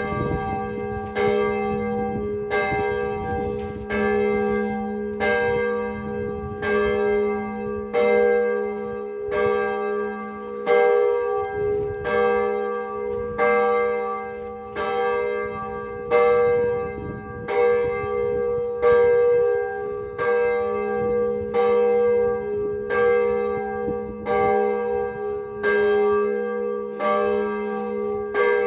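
Church bells ringing: an even series of strikes, about three every two seconds, each leaving a ringing chord, over the steady hum of a deeper bell.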